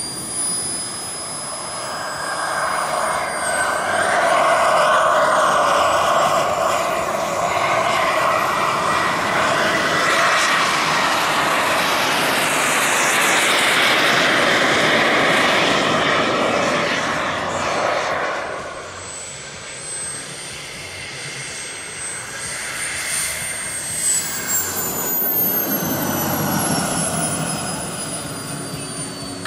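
Radio-control model jet turbine engines: a thin high-pitched turbine whine over a loud rushing jet roar. The roar swells and holds through the first half, then drops back to a quieter whine, and near the end the whine slides down in pitch.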